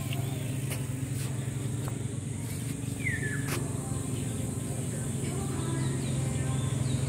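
Steady low engine hum from a slow-moving vehicle. About three seconds in there is a short falling bird chirp, over a constant high-pitched background tone.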